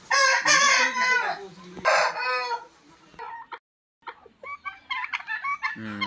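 Rooster crowing loudly, then a second shorter call about two seconds in. After a brief break, softer short poultry calls.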